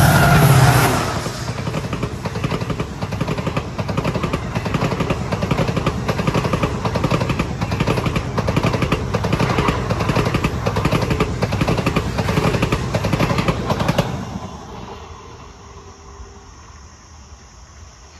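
WDP4D diesel locomotive passing at speed, its EMD two-stroke engine loud for the first second, followed by the passenger coaches' wheels clattering rapidly over the rails. About 14 seconds in, the clatter falls away as the train moves off.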